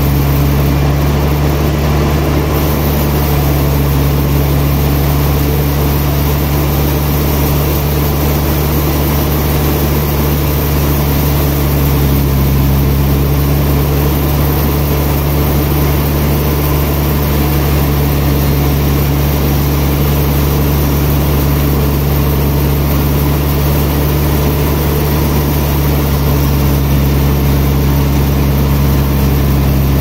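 Large band sawmill's drive machinery running with a steady, loud low hum.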